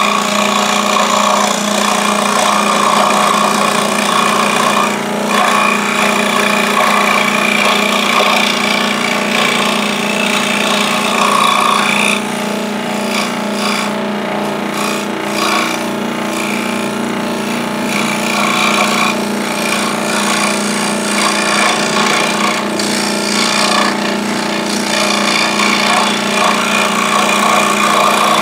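Scroll saw running and cutting wood: a steady motor hum under the rasp of the blade, easing slightly about halfway through.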